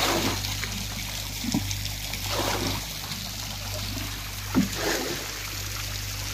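Water trickling and splashing into shallow standing water, swelling three times in louder splashy surges, over a low steady engine hum.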